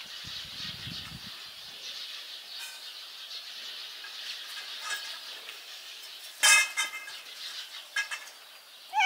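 Birds chirping faintly in the background, with one short, loud call about six and a half seconds in.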